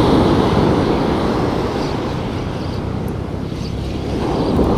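Ocean surf breaking and washing up a sandy beach, with wind rumbling on the microphone. The wash swells near the start and again about four seconds in.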